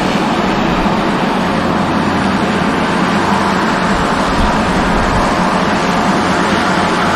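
Twin-engine turboprop plane with both engines running and propellers turning: a loud, steady drone.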